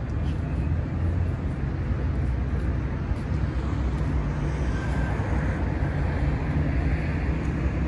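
Street ambience: a steady low rumble of road traffic and engines.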